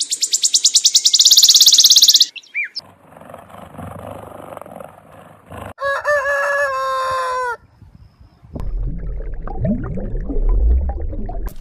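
Several different animal sounds cut one after another: a fast, high-pitched pulsing for about the first two seconds, then a rooster crowing once about six seconds in, then low rumbling sounds near the end.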